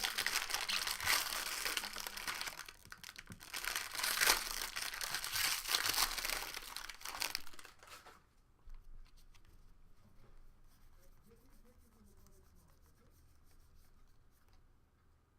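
A wrapper on a pack of Bowman Draft baseball cards is torn open and crinkled by hand. The crackling stops about eight seconds in, leaving only faint handling sounds.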